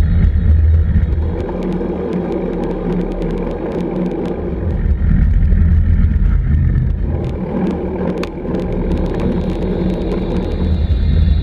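Wind and road noise on a bicycle-mounted action camera during a road ride, a steady rushing rumble with scattered small ticks and rattles from the bike.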